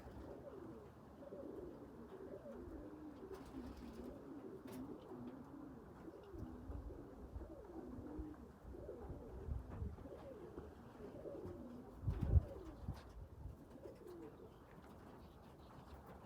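Pigeons cooing continuously, several calls overlapping. A low thump stands out about twelve seconds in.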